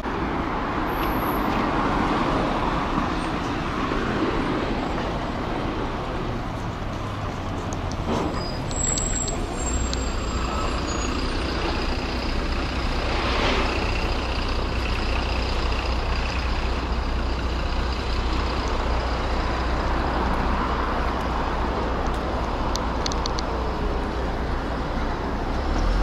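City street traffic: a steady wash of cars, buses and trucks passing on a busy avenue, with a continuous low engine rumble.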